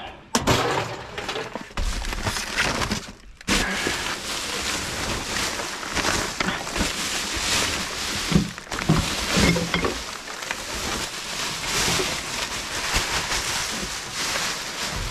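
Rubbish being rummaged through by hand in a dumpster: a continuous dense crackling and rustling full of small knocks, with glass bottles clinking and knocking.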